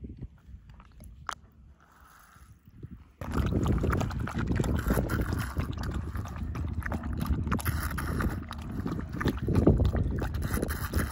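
A cockapoo lapping water from the bowl of a squeeze travel water bottle, a busy run of wet laps starting about three seconds in.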